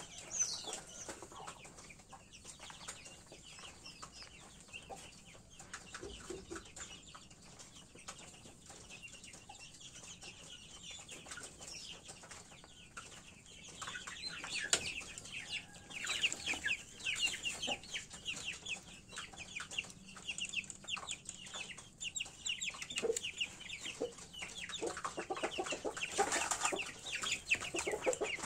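Chickens clucking, with fast high chirps that grow busier about halfway through.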